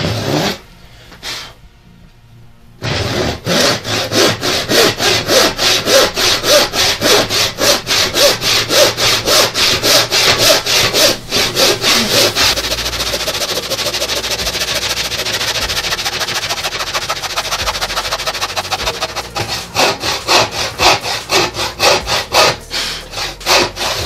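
Hand saw cutting through a wooden board in regular back-and-forth strokes, about two or three a second, starting about three seconds in. In the middle the strokes run together into a steady rasp, then come as separate strokes again near the end.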